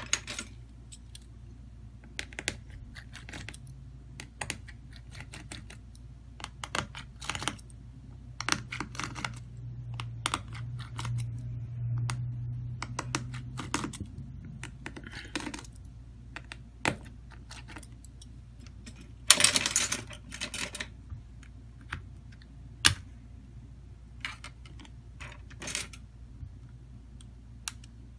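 Irregular small clicks, taps and scrapes of a hand tool and fingers on the plastic housing of a Samsung Galaxy A02s being taken apart, with a denser burst of clatter about two-thirds through. A steady low hum runs underneath.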